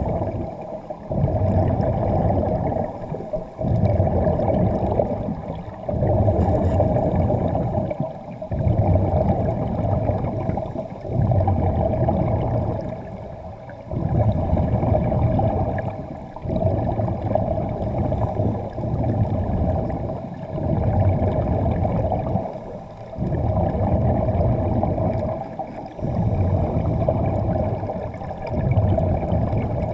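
Underwater breathing through diving gear: surges of rushing air and bubbling about every two to two and a half seconds, with short dips between them.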